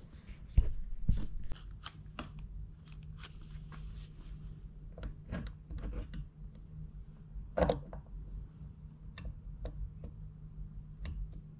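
Irregular sharp clicks and light knocks, several a second at first and sparser later, over a steady low hum.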